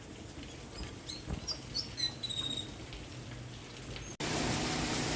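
A few faint, short, high bird chirps over a quiet background, one drawn out and falling slightly. About four seconds in, the sound cuts abruptly to a louder, steady rushing noise.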